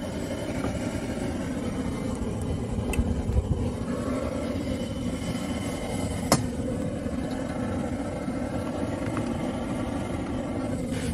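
Steady roar of a gas burner under a wok, with a single sharp knock about six seconds in.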